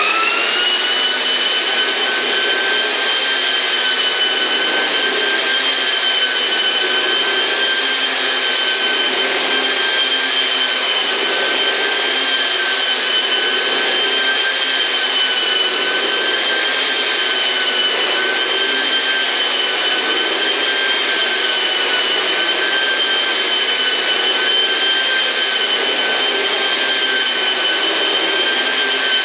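Yelmo floor polisher-vacuum motor switched on, spinning up to speed within the first half second, then running steadily with a high whine over a broad rushing noise.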